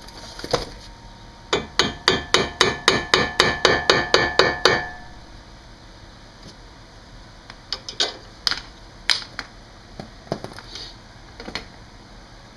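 Hammer striking a steel part in a fast run of about fourteen blows, roughly four a second, each with a metallic ring, followed a few seconds later by several scattered lighter knocks.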